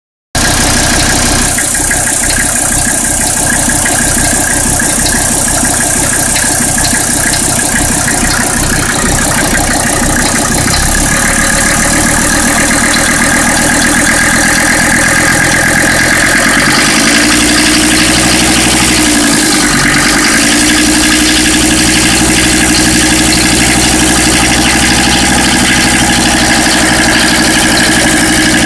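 Mercedes-Benz OM617 inline-five diesel engine idling with a fast, even clattering knock, a weird noise that sounds like a gasser knocking; its cause is undiagnosed. About two-thirds of the way through, the engine note dips briefly and recovers.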